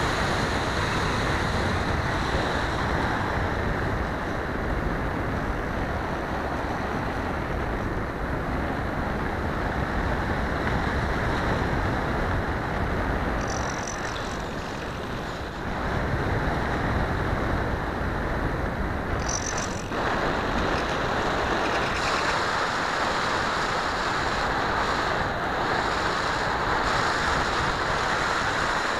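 Steady rushing wind and airframe noise on the microphone of a keychain camera riding on a Sky Surfer RC foam glider in flight. It dips briefly about halfway through, then comes back at full strength.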